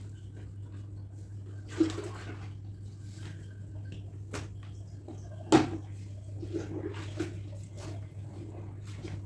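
Clothes being hand-washed in a tub: water sloshing and wet cloth being squished and handled, with two sharp knocks, the louder about five and a half seconds in. A steady low hum runs underneath.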